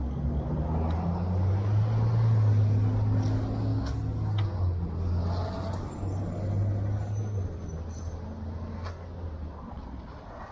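A heavy motor vehicle's engine running with a low, steady drone that fades away over the last few seconds.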